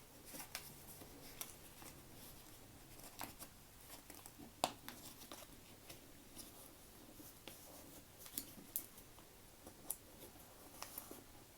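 A square sheet of origami paper being folded and creased by hand: faint rustling with scattered sharp crackles as the edge is brought to the center line and pressed flat, the loudest crackle a little under halfway through.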